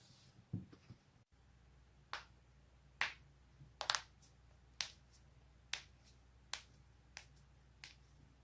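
Joints cracking: a run of sharp pops roughly one a second, two of them close together near the middle, with a dull thump about half a second in.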